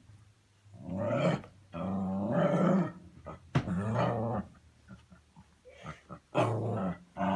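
A dog growling and grumbling in play: four drawn-out, pitched growls with short gaps between them, the second the longest at about a second, and another starting at the very end.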